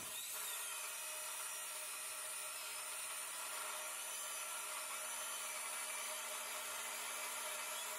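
Abrasive chop saw cutting through a steel leaf spring, its cutoff wheel grinding steadily without a break.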